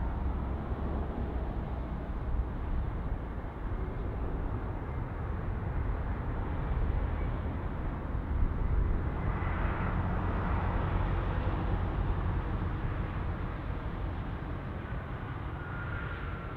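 Jet airliner's engines during a landing, a steady rumble that swells about nine seconds in, with a faint whine.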